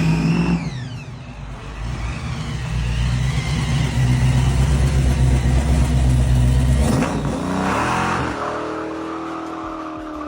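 Dodge car's engine under hard acceleration, holding a steady loud note, then the revs break off sharply about seven seconds in and fall away in a downward glide.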